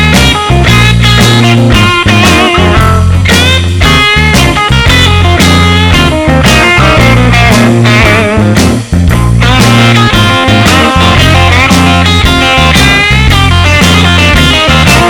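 Loud intro music: a rock tune with bending electric-guitar lines over a steady bass and drum beat, with a brief dip a little before the middle.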